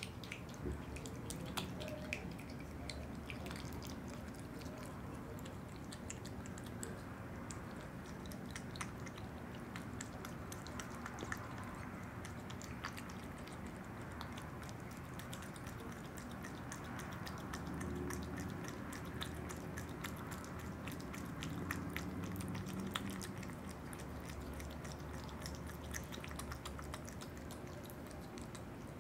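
Opossum eating yogurt: a steady, dense, irregular run of small mouth clicks.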